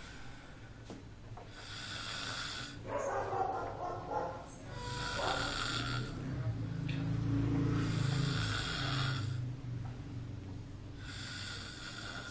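Snoring: about four slow, rasping breaths, roughly three seconds apart. The loudest is a long, low, rumbling snore around the middle.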